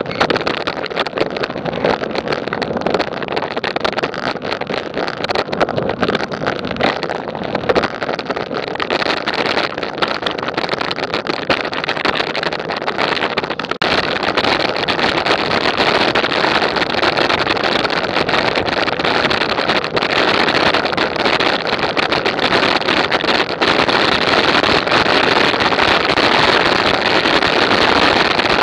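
Steady wind rush and riding noise on an action camera's microphone while moving along, with no clear engine note. It gets louder and denser about 14 seconds in, after a brief dip.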